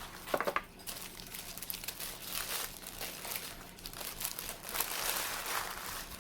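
Burger wrapper crinkling as a fast-food burger is unwrapped and handled, with a few sharper crackles under a second in and the loudest rustling about five seconds in.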